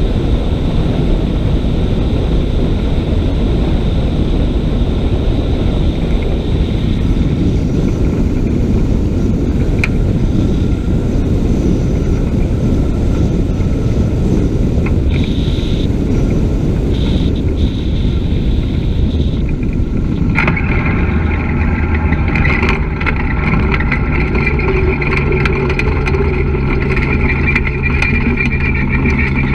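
Dragonfly ultralight landing: a steady loud rush of wind across the open airframe and microphone, with the engine underneath. About twenty seconds in, around touchdown, the wind rush drops away and the engine's steady idling hum comes through clearly, with scattered knocks from rolling over the grass.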